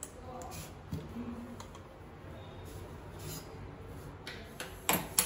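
Light plastic clicks and knocks as a mixer grinder jar is handled and lifted off its base, with two sharper clicks near the end.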